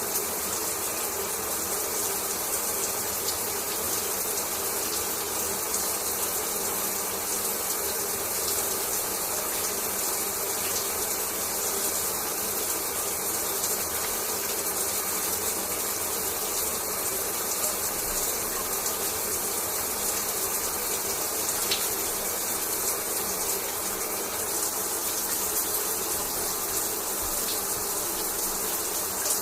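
Shower running: water spraying and splattering onto a bathroom floor or tub in a steady, even hiss.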